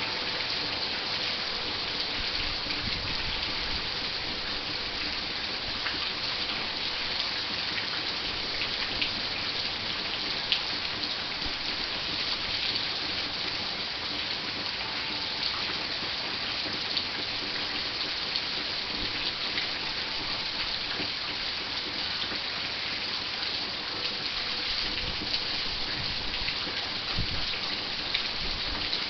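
Steady heavy rain falling and pattering on surfaces, with scattered sharp drop ticks. Faint wind chimes ring softly now and then underneath.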